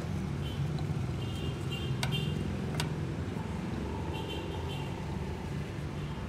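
Steady low background rumble, with a few short groups of high beeps and two sharp clicks about two and three seconds in.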